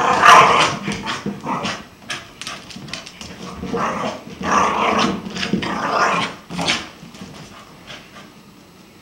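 Dog growling in play while chasing and pushing an inflatable exercise ball, mixed with short knocks and scrabbling. The sound comes in two loud bouts, the first right at the start and the second from about four to seven seconds in, then fades.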